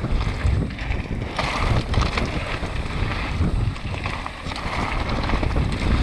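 Wind buffeting the microphone over the rumble of mountain-bike tyres rolling across a loose, stony trail, with scattered clicks and rattles from stones and the bike.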